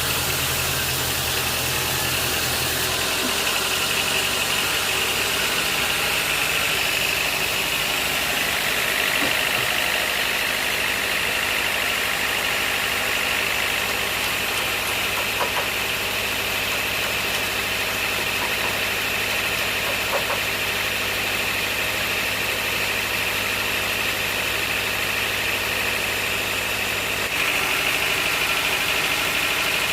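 An engine running steadily, with a steady high whine over its drone; the low note of the engine shifts down about three seconds in and back up near the end.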